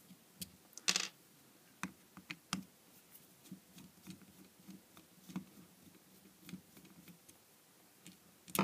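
A screwdriver working small screws out of the front diaphragm plate of a Hailea air pump, and the screws being lifted out. There are a few light clicks in the first couple of seconds, the strongest about a second in, then faint scraping and ticking, and a sharp click near the end.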